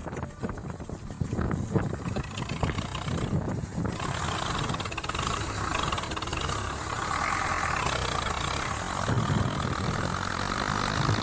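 Tractor engine running under load, steady, with a rougher noisy layer joining about four seconds in.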